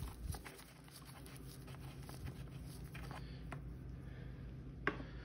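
Faint handling sounds of a gloved hand unscrewing and lifting off an outboard's plastic oil filler cap: scattered light clicks and rubbing, with a sharper click near the end, over a low steady hum.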